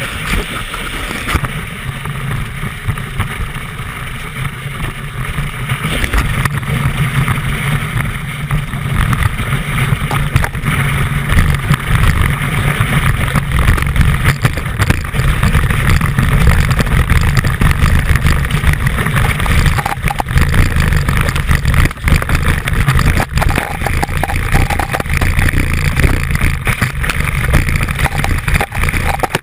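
Ski running fast over snow, heard through a camera mounted at the binding: a loud, rough rumble and hiss of the ski on the snow that grows louder after about six seconds.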